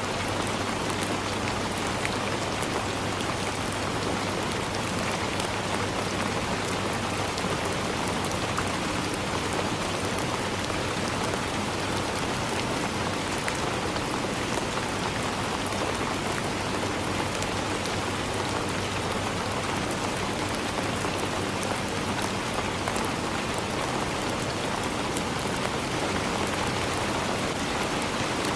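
Steady rain falling on forest leaves: an even hiss dotted with countless small, individual drop ticks.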